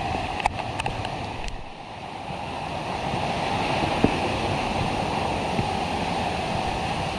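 Steady rush of flowing water from the waterfall's stream, dipping briefly about two seconds in and then running a little louder, with a few light clicks early on.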